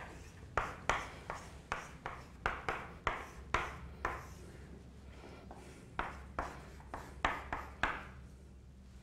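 Chalk writing on a chalkboard: a string of quick taps and short scrapes as the strokes go down, with a pause of about two seconds midway.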